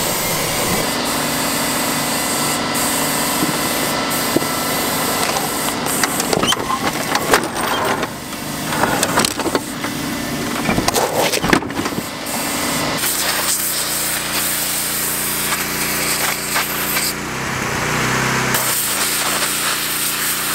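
Steady mechanical running of power equipment, changing to a different steady engine-like note about two-thirds of the way through, where a pressure washer is spraying.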